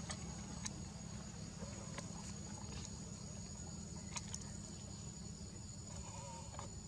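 A steady, high-pitched insect drone holds one unchanging tone throughout, over a low steady rumble. Scattered faint clicks and ticks come through, and a brief faint wavering call sounds about six seconds in.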